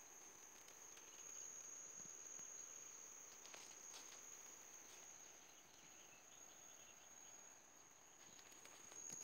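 Faint steady high-pitched trill of an insect, held at one unchanging pitch, with a few faint rustles in the vegetation.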